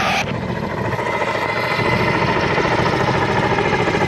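Kamov Ka-32A coaxial twin-turbine helicopter flying with a slung load: a steady, rapid pulsing from the rotors under an even turbine whine. A short burst of hiss comes right at the start.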